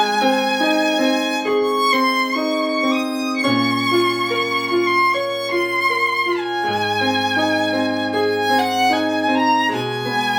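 Violin playing a slow, singing melody with vibrato over piano accompaniment, the piano's bass note changing about every three seconds.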